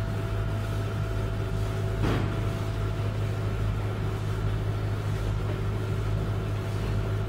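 Steady low electrical hum with a few faint steady tones above it, and a faint knock about two seconds in.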